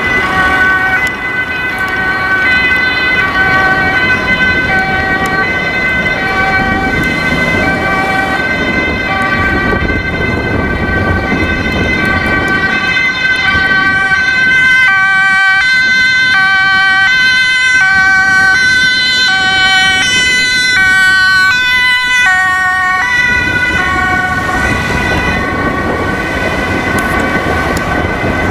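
Dutch ambulance's two-tone siren alternating between a low and a high note about once a second, loudest as it passes close about halfway through, then fading. A steady high tone sounds beneath it, over city traffic noise.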